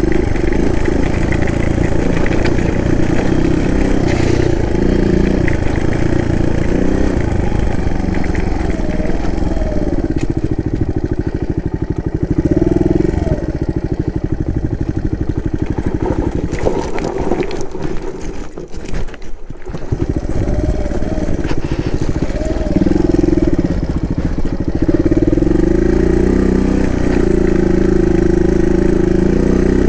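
Suzuki DR200's single-cylinder four-stroke engine pulling the motorcycle along a trail, revs rising and falling with the throttle. About two-thirds of the way through the engine drops off briefly, then picks up again.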